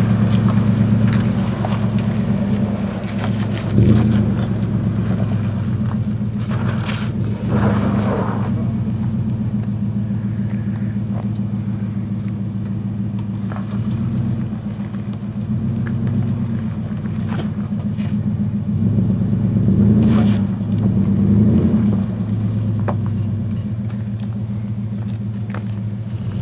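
Nissan Titan's V8 engine running at low revs as the pickup crawls over rock, a steady low drone that swells a few times with throttle, with scattered short clicks and knocks.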